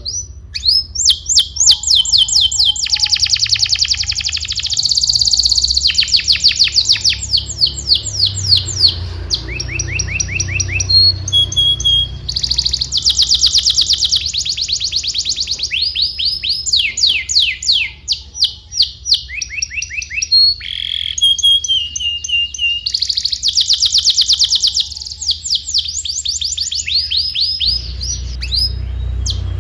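Domestic canary singing a long, loud song of fast trills and rolls: runs of rapidly repeated high notes, with the phrase changing every few seconds. A low steady rumble lies underneath.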